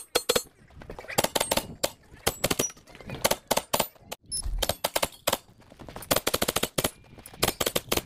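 Rapid strings of gunshots from a direct-blowback pistol-calibre carbine firing Magtech 115-grain steel-cased 9mm rounds, the shots coming in quick runs with short pauses between them.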